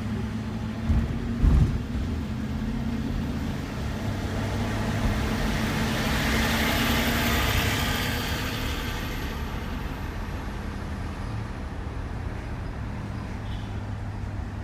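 Road noise of a moving shuttle van, with a steady low engine hum and two short thumps about a second in. In the middle a broad swell of road noise builds and fades again.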